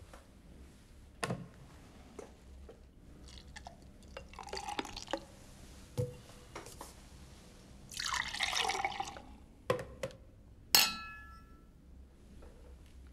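Beer poured from a plastic pitcher into glasses, in two pours, with knocks of the pitcher and glasses set down on the table. Near the end, two glasses are clinked together in a toast, a sharp ringing clink that is the loudest sound.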